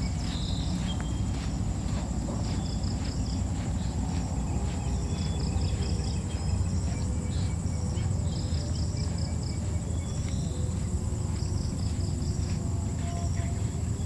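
Insects calling in the grass: a steady high-pitched drone with groups of short, rapid chirps over it, above a constant low rumble.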